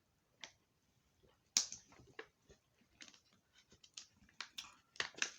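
A run of sharp, dry clicks and smacks, sparse at first and quickening toward the end.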